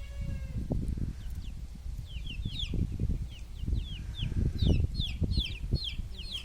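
Free-range desi chickens calling: a run of short, high chirps, each falling in pitch, coming thick and fast after about two seconds, over low knocks and rustling.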